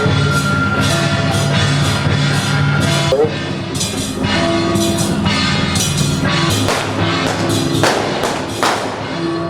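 Loud music with a driving drum beat and many sharp percussive hits.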